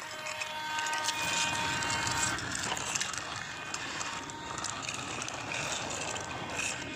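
Plastic toy dump truck loaded with rocks rolling across a hard floor: a rough, rattling noise with small clicks. For the first couple of seconds a battery toy train's electronic tones carry on underneath.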